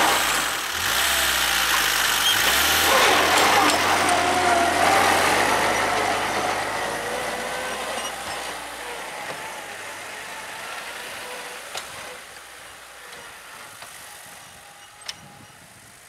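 Homemade tractor's engine running as it pushes snow with its front blade, growing steadily fainter as the tractor drives away. Two short sharp clicks come near the end.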